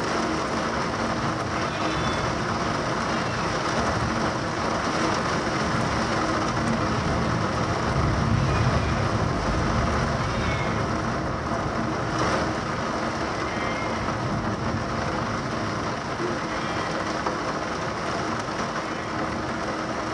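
Heavy thunderstorm downpour: a dense, steady rush of pouring rain and wind. It swells with a deeper low rumble about eight seconds in.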